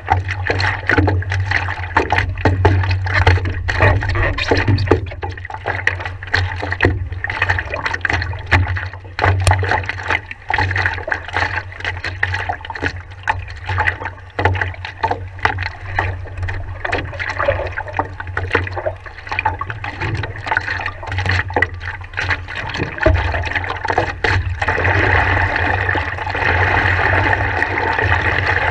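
Water lapping and splashing against a stand-up paddleboard, with many small irregular splashes, heard close from a camera on the board's deck.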